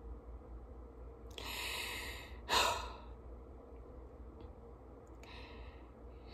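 A woman's breathing in grief: a long breath about a second in, a sharp sigh right after it, and a fainter breath near the end.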